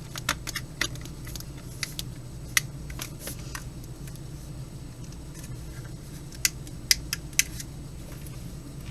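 Scattered light clicks and taps of small hard objects being handled, about a dozen, irregularly spaced, over a steady low hum.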